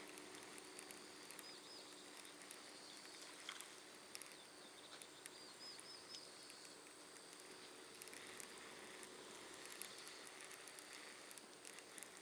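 Near silence: faint outdoor ambience with scattered soft ticks and a few faint high chirps.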